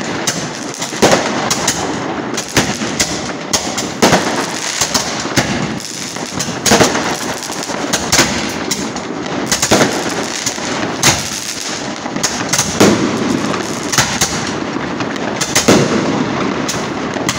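Fireworks going off: a handheld Roman candle firing shots upward amid many other fireworks banging and crackling overhead. Sharp, irregular bangs come every second or so over a constant crackle.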